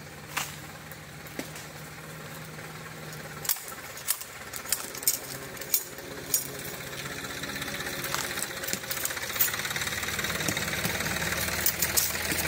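Zetor 3011 tractor's diesel engine running, growing steadily louder through the second half as it approaches. Over it come a dozen sharp clicks and knocks from the steel felling lever being worked in the felling cut of a hung-up pine.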